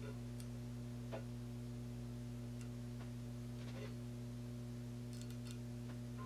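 Steady low electrical hum, with a few faint, scattered clicks and ticks from a micrometer being set and turned on a crankshaft main journal, including a short run of ticks about five seconds in.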